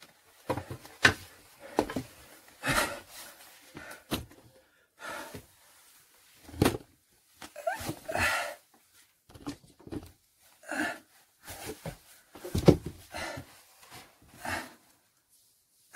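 Irregular close-up handling noise: rustling, light knocks and clicks, and breathy puffs, coming in short separate bursts with brief silences between.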